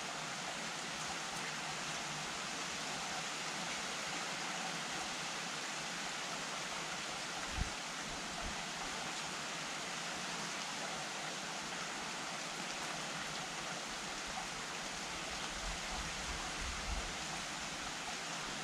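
Steady rain falling, an even hiss without distinct drops, with a brief low thump about halfway through.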